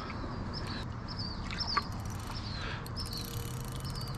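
A bird chirping over and over, short slurred chirps about twice a second, over a low steady rumble. From about three seconds in, a fast run of fine clicks joins in.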